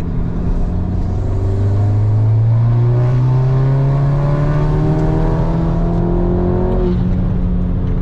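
Audi S3's 2.0-litre turbocharged four-cylinder with a catless 4-inch downpipe and no resonator, exhaust valves open in dynamic mode, heard from inside the cabin as it pulls hard, its pitch rising steadily for several seconds. Near the end the rising note breaks off as the automatic gearbox upshifts.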